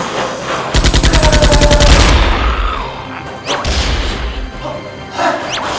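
A rapid burst of automatic gunfire sound effect, about a second and a half of fast evenly spaced shots, followed by more shooting, over background music.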